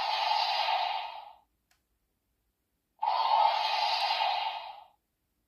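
Toy transformation belt's speaker playing a sound effect: two breathy hissing bursts, each lasting about a second and a half and fading out, the second starting about three seconds in.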